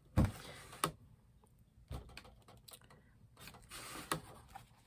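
Handling noises from an encaustic painting iron and a sheet of heavy paper on a worktable. A knock with a short scraping rush comes just after the start, then a sharp click, another knock about two seconds in, and a longer sliding rush near the end.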